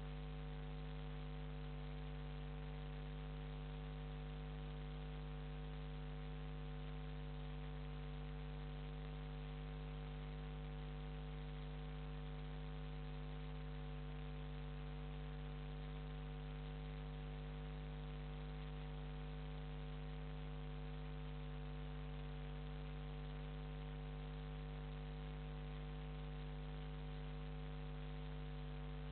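Steady electrical mains hum with a layer of hiss, unchanging throughout: interference in the recording, with no sound of the passing boats coming through.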